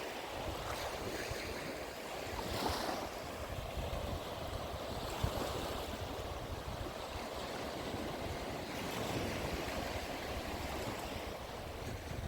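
Small waves washing gently onto the shore of a calm sea, with wind buffeting the microphone.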